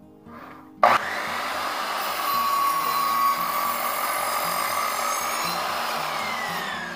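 Sliding miter saw motor switched on about a second in with a sharp start, running at full speed with a steady high whine. Near the end it is released and winds down, the whine falling in pitch.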